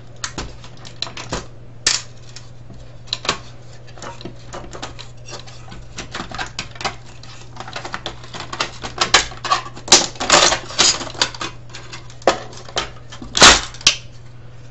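Hand screwdriver clicking and scraping on screws, circuit boards and the sheet-steel chassis of a Sony DVD player being dismantled: scattered small clicks and taps that get busier and louder in the last few seconds, with the loudest clatter near the end. A steady low hum runs underneath.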